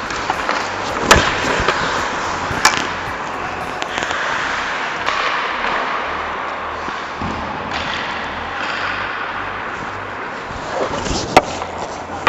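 Ice hockey play: skates scraping and hissing on the ice under a steady arena din, with sharp clacks of puck and sticks, the loudest about a second in and near the end.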